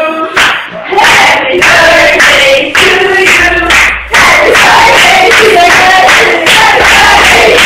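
A small group of young women singing a birthday song together in unison while clapping along.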